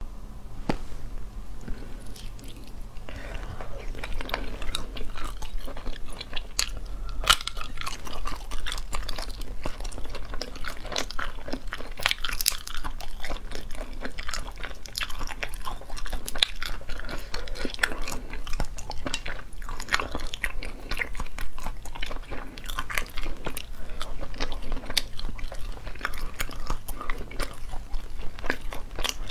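Eating sauce-braised snails: steady chewing, biting and crunching, with many sharp clicks and crackles as the meat is pulled from the shells by hand.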